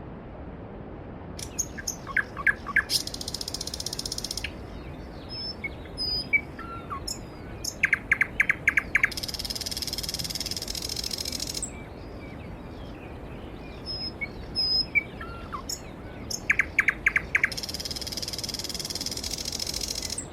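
Steady rush of a valley stream with a songbird singing over it. The bird repeats the same song three times, each a quick run of short notes followed by a long, high trill.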